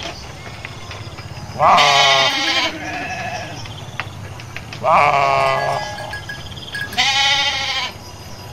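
Sheep bleating three times, each bleat about a second long.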